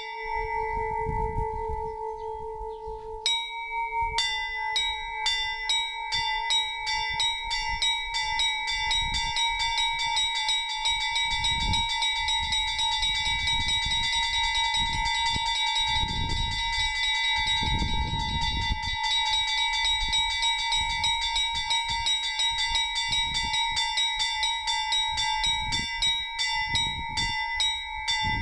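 Orthodox monastery church bells rung in a trizvon, the festal peal that calls to the Divine Liturgy. Held ringing tones of the larger bells sound under a fast, even run of strikes on the smaller bells. There is a brief break about three seconds in, then the fast run starts again.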